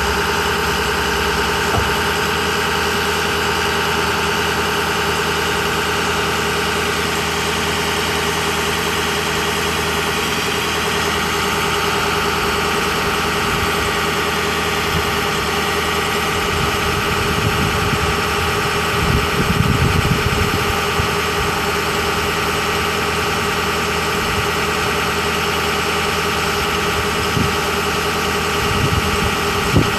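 Ford 6.0-litre V8 turbo diesel idling steadily, running the hydraulics of the Altec aerial boom as it swings and lowers the bucket, with a few low rumbling swells in the middle and near the end.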